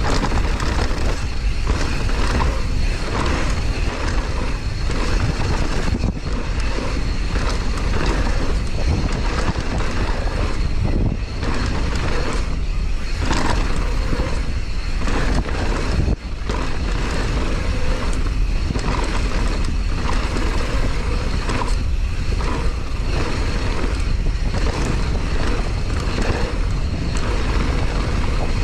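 Downhill mountain bike riding a rough trail: wind buffeting the microphone over the rush of the tyres on dirt, with steady clattering and knocks from the bike over bumps.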